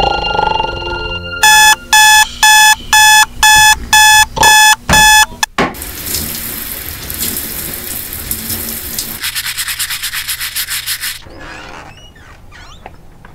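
Electronic alarm clock beeping: eight short, loud, high beeps at about two a second, then cut off. Then a shower running, a steady hiss of spray.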